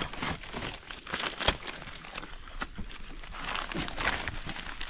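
Dry rubbish and leaves crinkling and crunching as they are gathered up by hand for kindling, with irregular small crackles and one sharper snap about a second and a half in.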